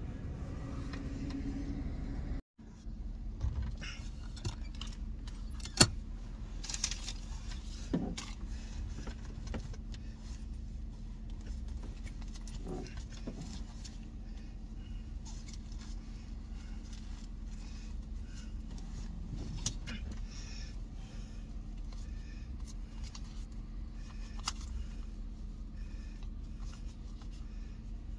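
Steady low hum of a pickup truck idling, heard inside the cab, with scattered clicks, rustles and jingling of things being handled. A sharp click stands out about six seconds in.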